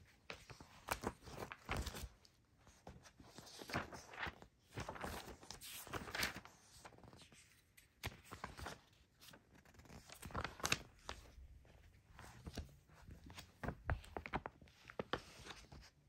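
Glossy magazine pages being handled and turned: a string of irregular paper rustles and swishes with soft taps as the pages are flipped and smoothed.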